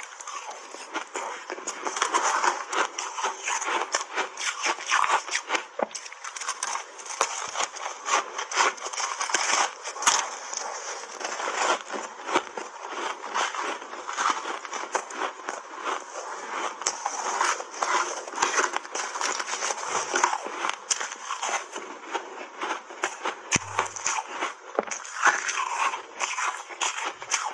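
Close-up crunching and chewing of a frozen ice cake, a dense continuous run of crisp crackles and crunches as the ice breaks between the teeth.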